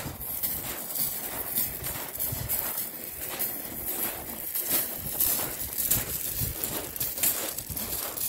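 Irregular crunching steps on shingle, a few a second, over a constant hiss.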